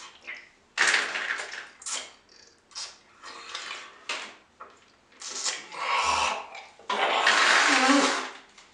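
A man's sharp breaths hissed in and out through his teeth, in bursts, the last one long and ending in a low groan, as he reacts to a sore tongue burned by extra-sour candy.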